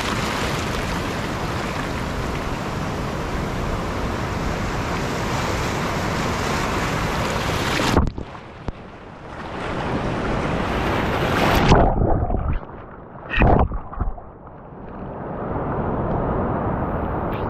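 Ocean surf washing in around a barnacle-covered rock: a steady rush of breaking waves and foam. About eight seconds in, water washes over the microphone and the sound turns muffled and gurgling, with a few loud sloshing surges. Duller surf returns near the end.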